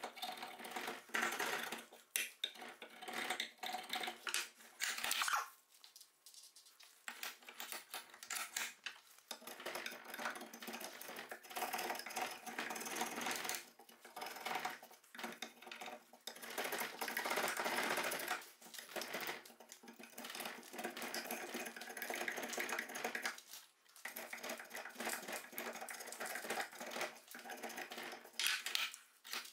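Drawknife shaving a wooden axe handle held in a vise: repeated scraping strokes of the blade across the wood, in quick runs with a short pause about a fifth of the way in.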